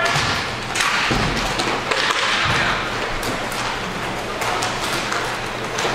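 Inline hockey play: repeated sharp clacks and knocks of sticks and puck, with a few duller thuds, over a steady hiss of skating on the rink floor.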